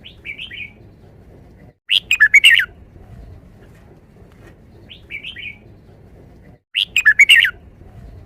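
Red-whiskered bulbul singing: two loud, quick phrases of about five notes each, some five seconds apart, with softer short phrases between them. This is its five-syllable 'forest song' phrase.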